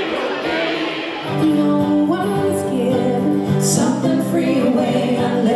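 Live folk music with singing: voices holding long notes, growing fuller about a second and a half in.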